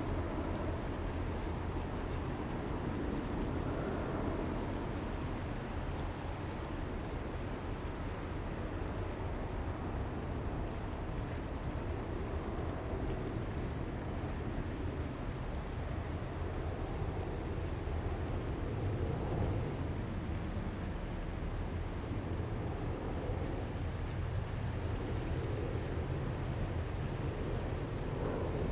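Distant low roar of a Boeing 767-300ER's twin jet engines as the airliner climbs away after takeoff, steady with slow swells every few seconds.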